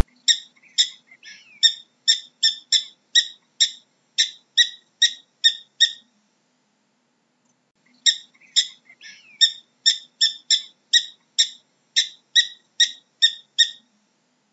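Ground squirrel calling: a fast series of short, sharp, high-pitched chirps, about two or three a second. The chirps come in two runs with a pause of about two seconds between them.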